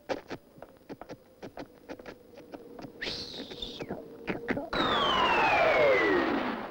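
Cartoon sound effects for a mechanical bird: a run of quick clicks and taps, a short high squeal about three seconds in, then, from about two-thirds of the way through, a long whistle sliding steadily down in pitch, the classic cartoon falling sound as the bird drops from the sky.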